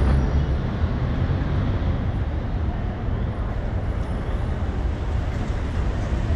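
Steady city street traffic noise: an even low rumble with a fainter hiss above it and no distinct events.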